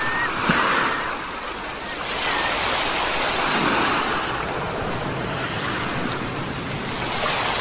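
Ocean surf washing ashore, the waves swelling and easing over a few seconds. A short seagull call near the start and another about two seconds in.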